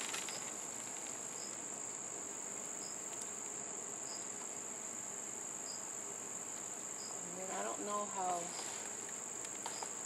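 Insects trilling outdoors: a steady, high continuous buzz, with a fainter short chirp repeating about every second and a half.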